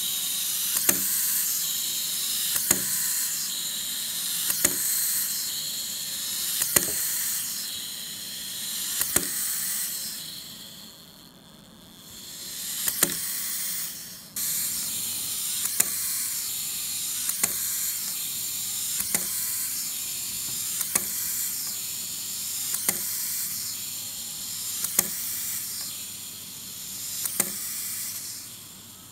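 Clockwork motor of a small plastic wind-up frog toy running with a steady high whirring hiss, while a sharp plastic tap comes about every two seconds as the toy moves on the tabletop. The whirr dips for a few seconds about a third of the way in and returns suddenly.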